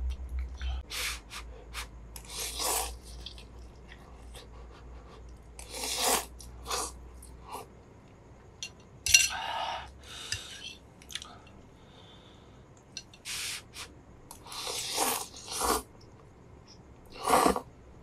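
Noodles being slurped and chewed close to the microphone: short, irregular bursts of slurping a few seconds apart, with a sharp click about nine seconds in.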